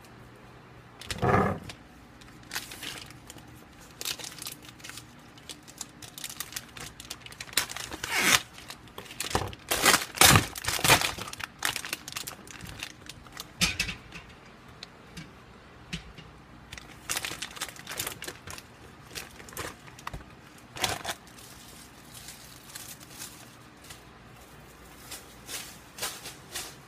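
Plastic bag and wrapping crinkling and rustling as they are handled, in irregular bursts that are loudest about ten seconds in.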